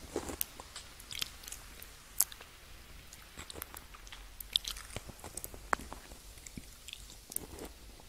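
A piece of candy being bitten and chewed close to the microphone: sharp crunches and mouth clicks at irregular intervals, the loudest about two seconds in.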